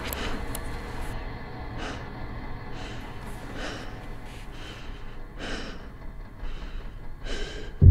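A person breathing heavily and unsteadily, with sharp breaths coming about once a second, over a low steady hum.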